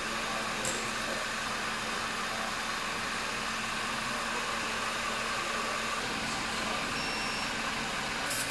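Steady mechanical hum and hiss under the car, with a light tool click about a second in and a short cluster of clicks near the end as a plug is tightened.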